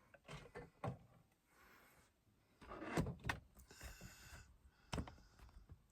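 Faint handling noise as a camera is picked up and repositioned: a scattering of small knocks and clicks with light rustling, the firmest bumps about three seconds in and again about five seconds in.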